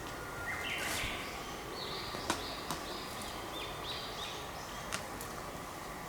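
A bird singing a run of short, high notes that step up in pitch and then repeat, over a faint outdoor background. A few sharp clicks or taps cut in, the loudest a little past two seconds in.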